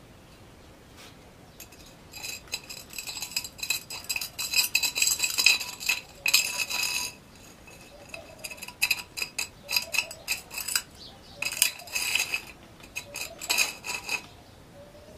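A thin steel rod tapping quickly against a brown glass Kingfisher beer bottle, the glass ringing with each strike. The tapping starts about two seconds in, pauses briefly around the middle, then picks up again.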